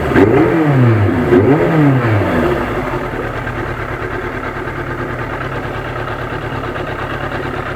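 1991 Yamaha FZR 1000's inline-four engine revving, its pitch rising and falling twice, then settling to a steady idle about three seconds in.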